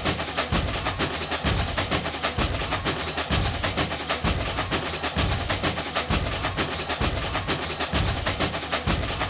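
Brazilian percussion-led music: fast, even strikes on wood-block-like percussion over a low drum beat about once a second.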